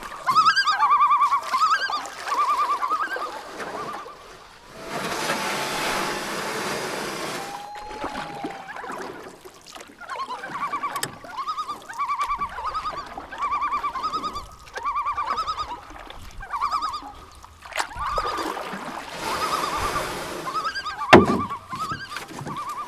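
A bird calling over and over in short, wavering, pitched notes, roughly one a second. Two gusts of wind noise come through, and there is a sharp knock near the end.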